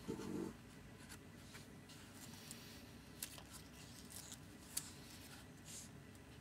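Quiet handling sounds: a soft thud right at the start as a card is laid flat on a foam mat. After that come light paper rustles and a few small clicks as a layered parchment-paper flower is handled on the card.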